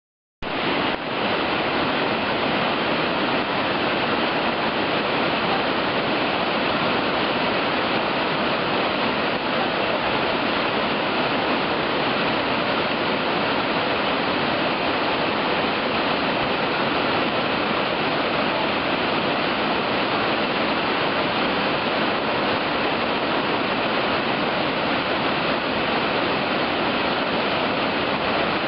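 Whitewater rapids of a big river rushing in a steady, unbroken roar, starting suddenly about half a second in.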